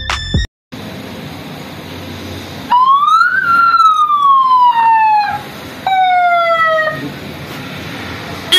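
Aftermarket electronic police siren fitted to a motorcycle, sounding one wail that rises briefly then falls slowly, followed by a second, shorter falling sweep.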